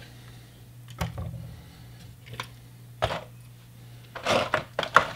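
Light clicks and clatter of model railroad tank cars being handled and set down on a table: a few single clicks, then a quicker cluster near the end, over a steady low hum.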